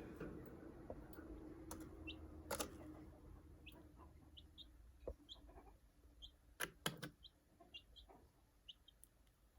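A young chick (Australorp, Light Brahma and Silkie bantam mix) peeping softly: short high peeps, about one or two a second, starting a couple of seconds in. A few knocks are mixed in.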